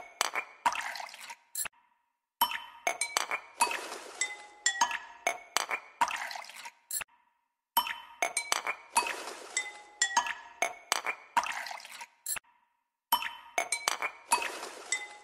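Background music: a short tinkling, glassy chime-and-click loop that plays about three times, with a brief silent gap between repeats.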